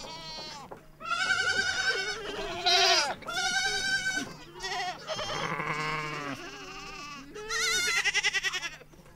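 A flock of goats and sheep bleating: about half a dozen wavering calls, one after another and sometimes overlapping.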